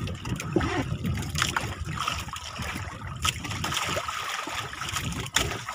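Sea water lapping and splashing against the hull of a small wooden outrigger boat, an uneven wash with a few brief splashes.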